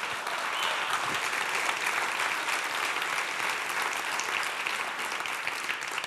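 Audience applauding, a steady clatter of many hands clapping that dies away near the end.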